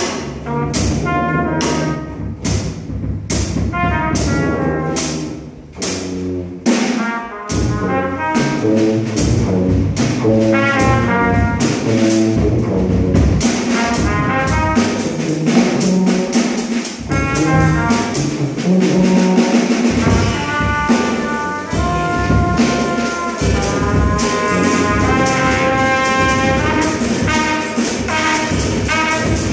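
Trumpet, tuba and drum kit playing jazz together. For the first seven seconds or so the drums strike about twice a second over the tuba's low notes, then the trumpet takes a fuller melodic line over the tuba and drums.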